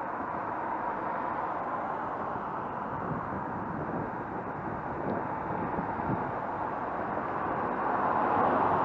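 Road traffic: a steady hiss of tyres and engines from cars on the road, swelling near the end as a vehicle draws closer.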